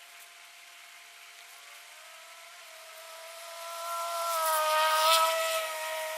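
A motor engine's steady drone, rising a little in pitch and growing louder to a peak about five seconds in, then easing off.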